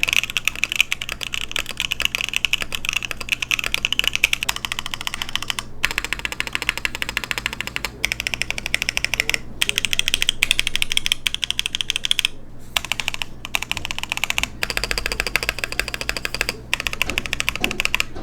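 Fast, continuous typing on a 65% mechanical keyboard with factory-lubed KNCKeys Red Jacket V1 Redux long-pole linear switches, a carbon fiber plate and ABS and PBT keycaps: full, clacky keystrokes with a few brief pauses. The tone of the keystrokes changes about fifteen seconds in.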